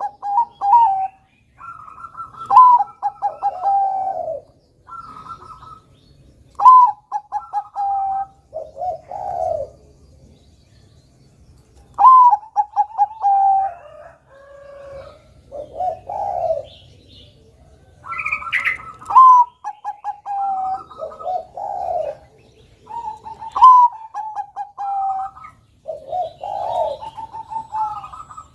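Bangkok-type zebra dove (perkutut) singing: about ten phrases of quick, stuttering coos, each starting on a higher note and stepping down in pitch, with short pauses between phrases.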